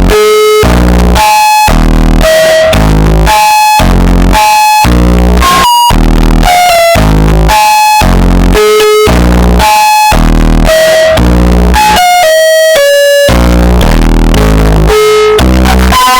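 Loud, heavily distorted synthesizer music: a melody of short held notes, a few to the second, over low notes that change with each one.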